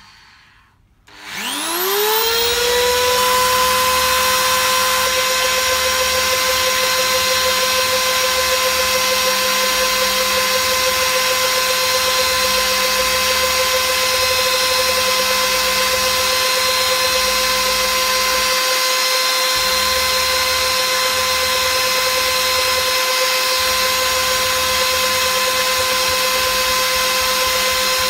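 Electric drill switched on about a second in, its whine rising as it spins up, then running steadily at full speed.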